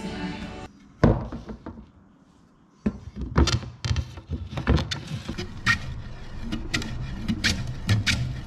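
One sharp wooden knock about a second in, as bent laminated wooden canoe stem pieces are handled on a workbench. From about three seconds in come repeated short rubbing, scraping strokes of a hand-held block shaping the curved laminated wood, roughly two or three a second.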